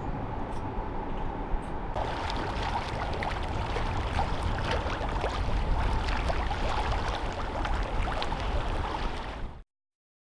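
Water splashing and lapping with many small crackles over a low steady rumble, cutting off suddenly near the end.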